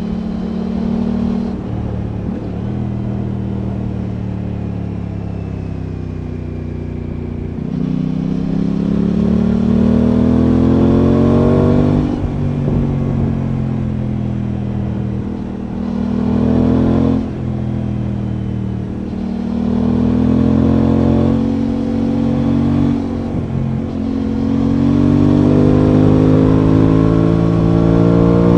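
Aprilia Tuono 660's parallel-twin engine heard from on board while riding, with wind noise. It holds steady at first, then climbs in pitch under acceleration and drops back several times.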